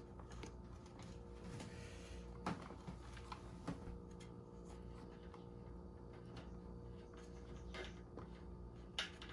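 Faint rustling and a few light clicks as wires and a cable are handled and pushed into an electric scooter's open battery deck, over a steady low hum.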